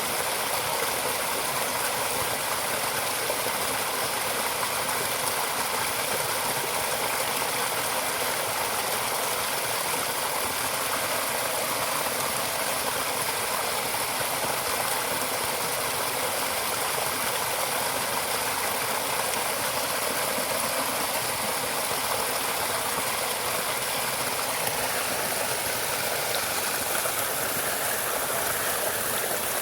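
Steady rushing noise of running water, even throughout. A faint thin tone runs through it and drops to a lower pitch about 25 seconds in.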